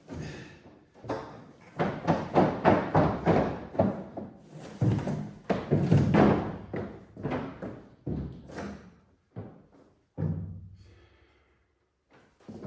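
Heavy rubber bed mat thumping and flopping against a pickup bed as it is unrolled and shoved into place: a run of irregular thuds, thickest in the first half and thinning out toward the end.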